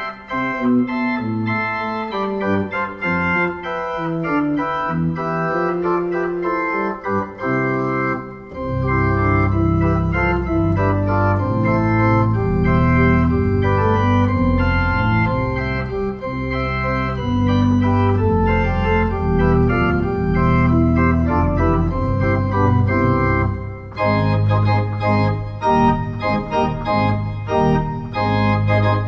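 Organ music played on a two-manual electronic home organ, in sustained chords. About eight seconds in a deep pedal bass comes in under a fuller sound. About twenty-four seconds in the playing turns to shorter, detached chords and the bass thins out.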